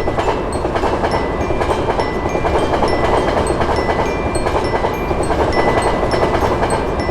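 A train passing over a level crossing, a loud steady rumble and rattle of the wagons. Through it the crossing warning bell rings in short, regular strokes about twice a second.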